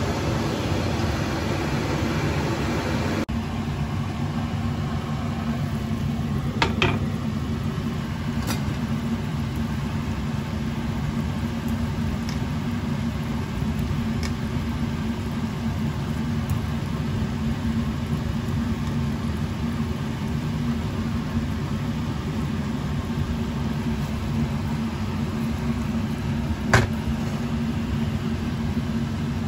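Steady whir of a kitchen fan motor with the faint sizzle of sauce simmering in a wok. A few sharp clicks of a utensil against the pan come about seven seconds in and near the end.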